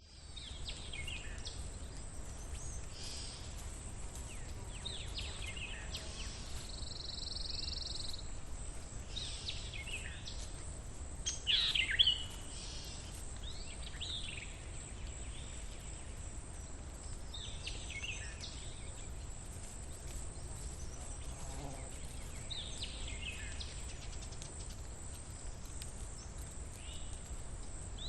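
Outdoor ambience: birds chirping now and then in short calls that sweep downward, one about twelve seconds in louder than the rest, over a steady low rumble and a faint high hiss.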